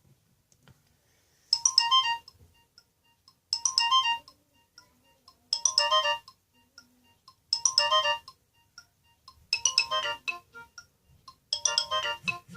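Nokia 216 ringtone played through a Sony Ericsson W595 phone's loudspeaker: a short, bright electronic melody phrase that starts about a second and a half in and repeats every two seconds, six times.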